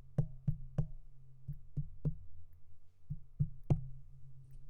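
Light fingertip taps on the metal body of a Rode NT3 condenser microphone, picked up as handling noise: sharp knocks with a low, boomy thud, in quick groups of about three with short pauses between.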